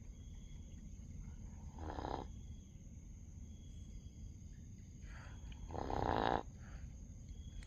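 A sleeping dog snoring: a short snore about two seconds in and a louder, longer snore about six seconds in.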